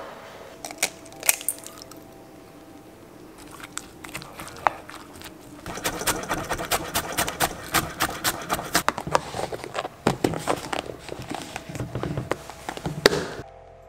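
Kitchen handling sounds: a few clinks of a metal fork against a ceramic bowl of fried rice, then a knife chopping spring onions on a wooden cutting board in a rapid run of knocks, then clicks of an orange plastic food-container lid being handled and pressed on, cutting off suddenly near the end.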